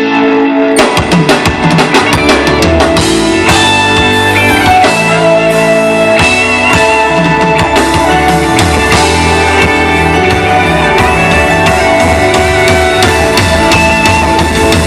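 Loud pop-rock music: the drums and guitar come in about a second in over a held keyboard chord and carry on with a steady beat.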